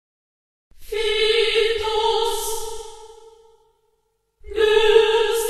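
Choral music: voices holding a long, steady sung note that swells in just under a second in and fades away, then a second long note begins about four and a half seconds in.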